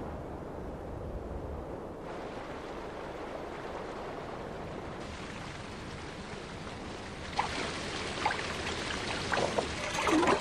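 Steady rushing of muddy floodwater. From about seven seconds in come scattered short scrapes and splashes, which grow busier towards the end.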